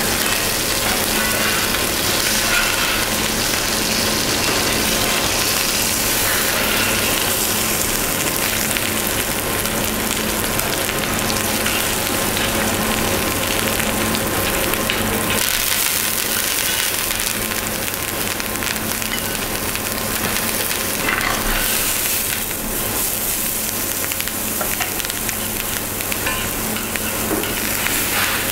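Venison fillet sizzling steadily as it sears in a frying pan, with a steady low hum underneath.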